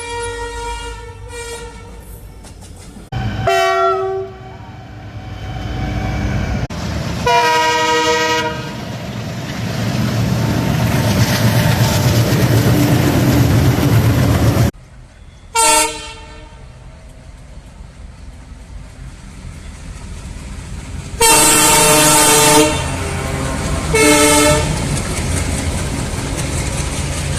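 Diesel locomotive horns sounding a series of about six blasts, long and short, each a chord of several notes. Between the blasts runs the loud low rumble of the train, heaviest in the middle stretch.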